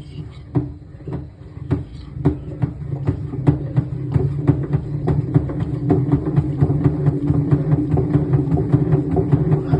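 Samsung front-loading washing machine drum speeding up over a steady motor hum, with a repeated knock that comes faster and louder as the drum gains speed, going from under two knocks a second to several a second. This is the abnormal noise the machine is being repaired for.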